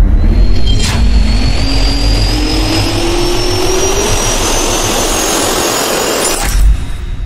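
Jet engine spool-up sound effect: a whine that rises slowly in pitch over a heavy low rumble, with a sharp hit about a second in and another near the end, after which it fades away.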